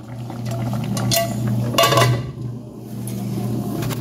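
Aluminium pressure-cooker lid being set onto a pot, clattering against the metal rim twice, about a second in and more loudly about two seconds in, over the steady low rumble of the soup boiling.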